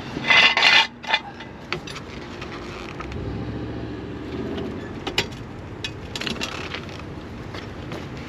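A steel jack stand being scraped into place and set under the car: a loud metal scrape and clank about half a second in, then scattered light knocks. A low steady rumble runs for a couple of seconds around the middle.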